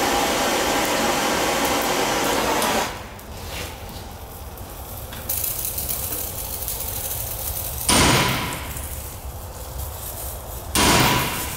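Handheld gas torch hissing steadily as it heats the rubber bushing in a leaf spring eye, cut off about three seconds in. Then a hammer strikes the steel spring eye twice, about eight seconds in and near the end, each hit ringing, to drive out the heat-softened bushing.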